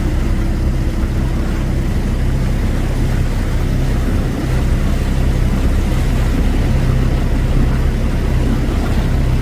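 An engine running steadily at a constant speed, a low droning hum that does not change.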